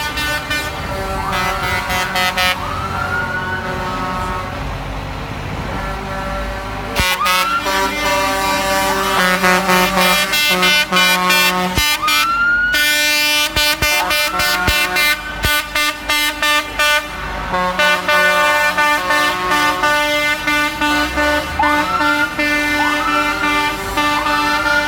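Cement mixer trucks blowing their air horns over and over, several horn tones sounding together in short and long blasts, with short rising whoops among them and diesel engines running underneath. The honking gets louder and more continuous from about seven seconds in.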